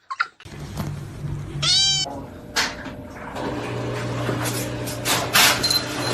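A cat meows once, a short call about two seconds in, over a steady low hum.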